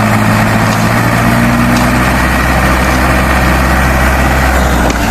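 Large truck engine idling steadily, a low, even engine note with a dense hiss over it.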